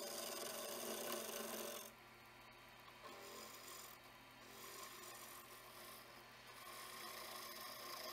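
Freshly sharpened skew chisel cutting a spinning wood pen blank on a JET lathe: a steady shearing hiss of the edge on the wood, which eases off about two seconds in and builds again near the end.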